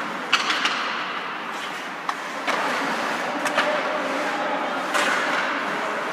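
Ice hockey play in an indoor rink: steady rink noise and skates scraping the ice, cut by sharp clacks of sticks and puck several times, the loudest about half a second in and again near five seconds.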